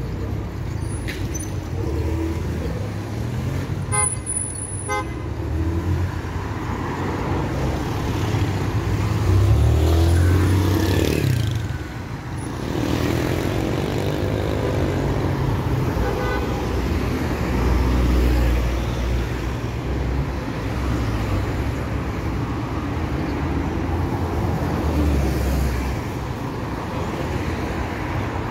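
Road traffic on a busy city boulevard: cars and other vehicles driving past in a steady rumble. One vehicle passes close about ten seconds in and is the loudest.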